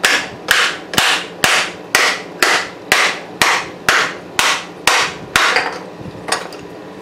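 Ball-peen hammer striking the edge of a metal mold, about two blows a second, a dozen in all, each with a short ring, to knock a cast block of melted HDPE plastic loose from the mold. The blows stop about five and a half seconds in, with a couple of light taps after.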